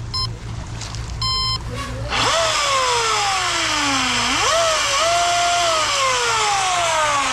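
A few short electronic beeps, then about two seconds in a small gasoline engine of an RC gas boat starts running loudly. It is revved twice: the pitch jumps up sharply, then sinks slowly as the throttle eases off.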